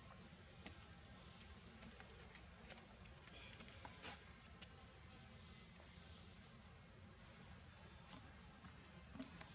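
A faint, steady, high-pitched drone from insects holding two shrill tones, with a few faint scattered ticks.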